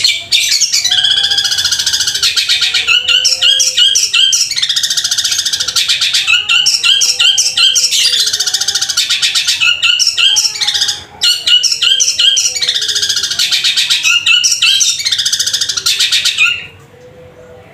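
Caged long-tailed shrike (cendet) singing a loud, harsh, rapid chattering song in repeated phrases, imitating the calls of fighting sparrows. The song stops abruptly near the end.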